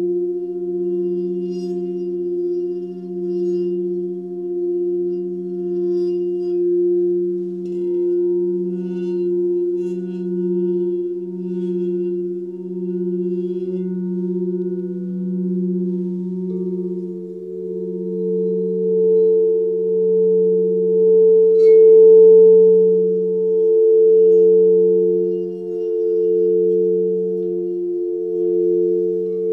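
Crystal alchemy singing bowls ringing together, several sustained tones that waver and pulse slowly. A higher bowl tone swells in about halfway through and becomes the loudest.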